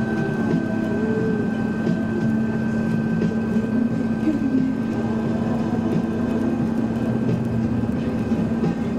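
Volvo F12 truck's diesel engine running steadily at motorway cruising speed, heard from inside the cab as an even drone with road noise.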